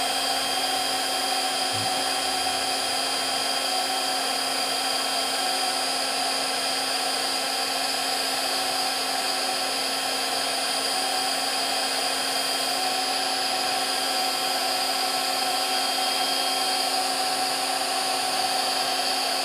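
Ryobi R18HG-0 18V cordless heat gun running steadily with its nozzle fitted: a constant fan hum and rush of air, with several steady high tones.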